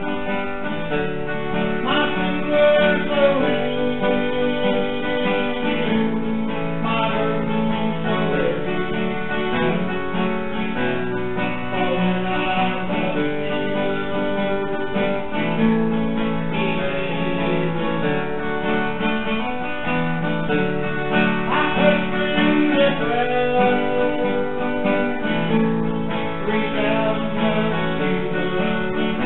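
Acoustic guitar music in a country style, playing steadily.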